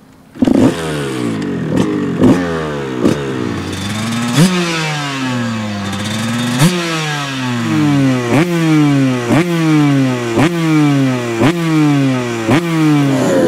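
Kawasaki KX150's ported 144cc two-stroke single, a bored-out 2007 KX125 engine with an HGS expansion pipe and silencer, revved on the stand. It comes in suddenly about half a second in. It is then blipped again and again: each blip sends the pitch up sharply, then the revs sink back slowly. Near the end the blips come about once a second.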